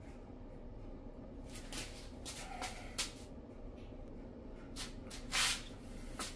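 Several short rustling, hissing handling noises over a low steady hum, starting about a second and a half in, with the longest and loudest near the end.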